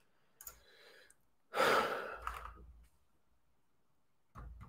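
A man sighs into a close microphone: a soft breath in, then a longer audible exhale about a second and a half in. A few faint clicks near the end.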